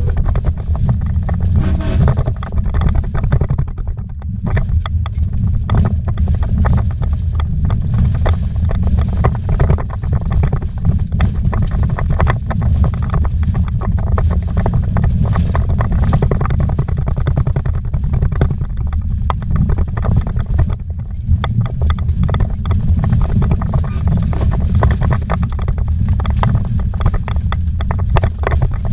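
Vehicle driving fast over a rough dirt road, heard from inside the cab: a loud, steady low rumble of tyres and engine with constant quick knocks and rattles from the bumpy track.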